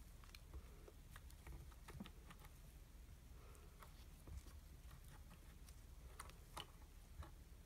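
Faint, irregular small clicks and taps as the metal wing nuts on a wooden soap cutter's adjustable stop are turned and the wood and metal parts are handled with gloved fingers.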